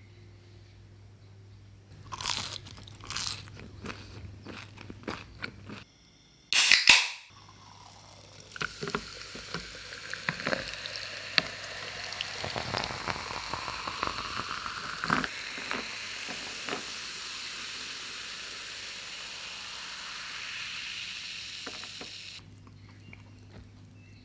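Crispy fried potato fries crunching for a few seconds, then a short loud hiss as a soda can is opened. After that, cola is poured over ice into a glass and fizzes for about fourteen seconds, the pour's pitch rising as the glass fills, before it cuts off.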